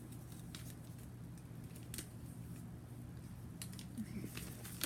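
Faint rustles and scattered soft ticks of a sheet of origami paper being handled and folded by hand, over a steady low hum.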